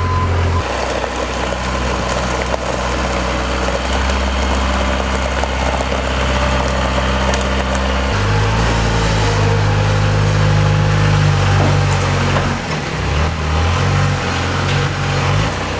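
Engine of a rough-terrain forklift running steadily under way. Its note steps up about eight seconds in, then rises and falls near the end as the machine manoeuvres. A steady beeper tone stops just after the start.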